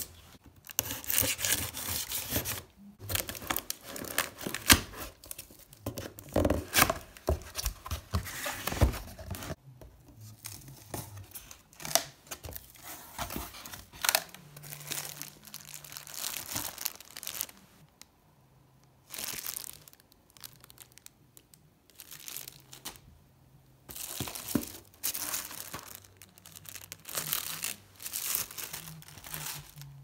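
Speaker packaging being opened and handled by hand: bursts of tearing and crinkling, with sharp clicks and knocks, broken by short pauses.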